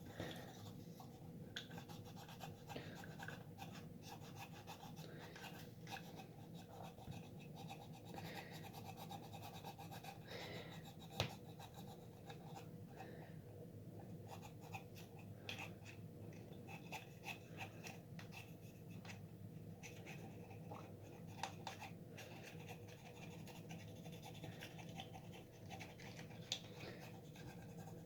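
Faint, irregular scratching and rubbing of a small scrubber scraping at the inside of a hard plastic Aquapets toy, with a few sharper clicks, over a steady low hum.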